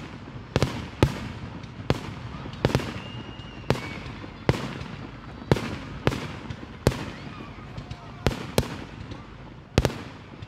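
Aerial firework shells bursting, about a dozen sharp bangs at uneven intervals of roughly one a second, each trailing a short echo, over a low rumble.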